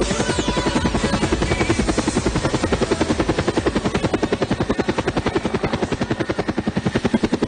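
Helicopter rotor beating steadily: a rapid, even chop of blade pulses, about ten a second.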